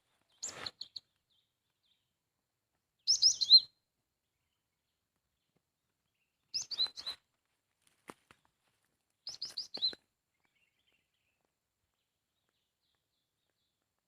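Bird calls played from a lure recording for bird trapping: short bursts of a few high, falling chirps that repeat about every three seconds, with silence between.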